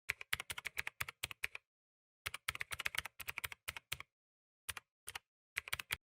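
Typing on a computer keyboard: a quick run of keystrokes about a second and a half long, a short pause, a second run of nearly two seconds, then a few scattered clusters of strokes.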